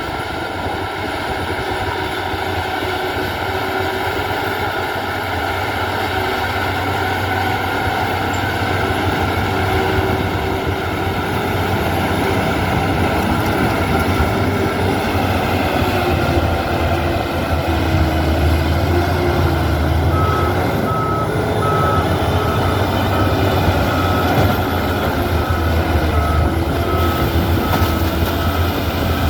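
Heavy earthmoving machine's engine running steadily under load with a deep rumble, and from about two-thirds of the way in a back-up alarm beeping in a regular series of short high beeps as the machine reverses.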